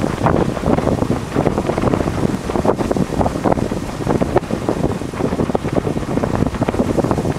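Strong wind buffeting the microphone in irregular gusts, a loud rumbling rush.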